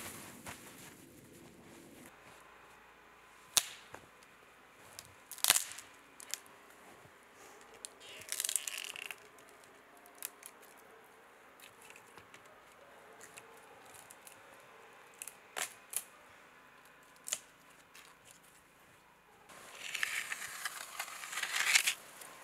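Dry wood snapping as sticks are broken off a small tree by hand: a few sharp single cracks several seconds apart, with short rustling, crunching scrapes in snow between them.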